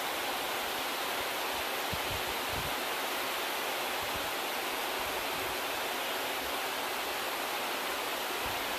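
Heavy rain falling steadily on the trees' leaves, a constant even hiss.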